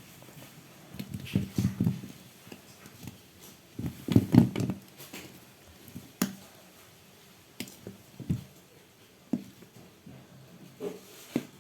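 Spoon stirring and folding thick cake batter in a mixing bowl: irregular soft thuds and squelches, with a few sharp clicks of the spoon against the bowl.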